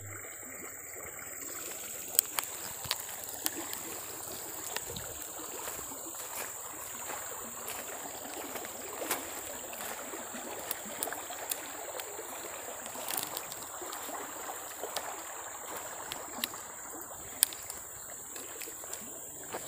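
River water trickling and gurgling, with a steady high-pitched whine over it and scattered sharp clicks.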